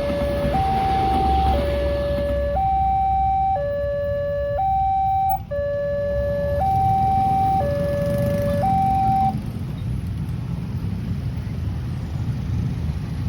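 Railway level crossing warning siren sounding a two-tone alarm, alternating between a lower and a higher tone about once a second, with a brief dropout about five seconds in; it stops about nine seconds in, leaving a low background rumble.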